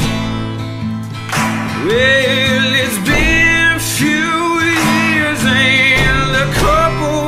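Blues-rock song: a male voice singing a long, wavering line over guitar and heavy drum beats, the voice coming in about two seconds in.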